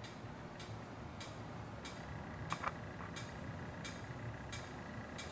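Faint, regular mechanical ticking, about three ticks every two seconds, with two louder clicks close together a little past the middle.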